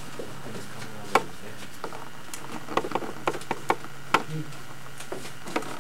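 Scattered small clicks and knocks over a steady low hum: one about a second in, a quick run of them around three seconds, another just after four seconds and one more near the end.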